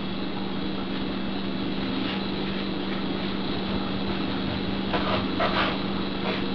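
A serrated knife sawing a few faint strokes through a cooked chuck roast, most of them near the end, over a steady background hum with a constant low tone.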